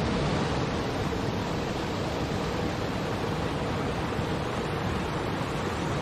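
Small waterfall cascading over boulders into a river: a steady rush of falling and churning water.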